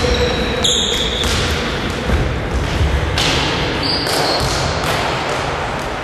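Pickup basketball game on a gym's wooden floor: the ball bouncing and players running, with a few short high squeaks, in a large echoing hall.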